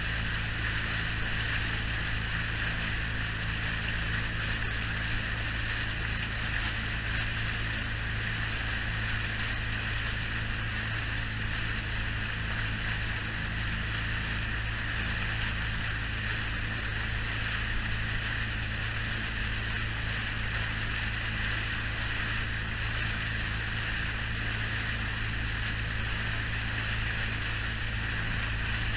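An inflatable tender boat running steadily at speed: its engine drones under the rush of water and spray along the hull and wind over the boat.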